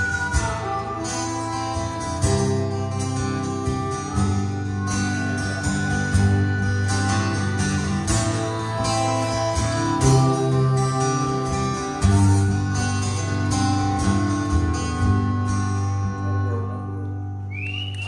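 Live acoustic band playing an instrumental passage: several acoustic guitars strumming, with harmonica carrying the melody in long held notes. The music dies away shortly before the end.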